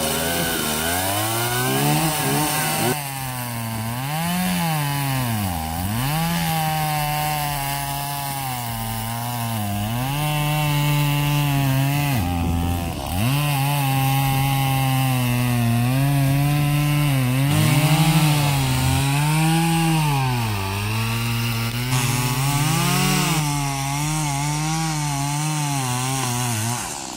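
Chainsaw felling a tree: the engine runs hard throughout, its pitch sagging again and again as the chain loads up in the cut and then picking back up.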